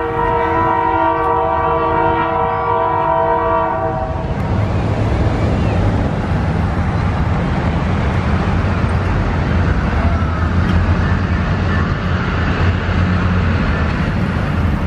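Diesel locomotive's multi-chime air horn sounding one long chord that stops about four seconds in, followed by the locomotive's steady diesel engine rumble and wheel noise as the train approaches the crossing.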